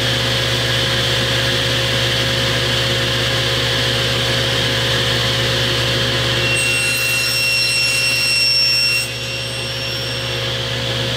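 SawStop table saw running at full speed with its blade set low. From about six and a half seconds in, for about two and a half seconds, a high-pitched whine joins the running sound as the blade cuts a shallow rabbet in a strip of ABS plastic.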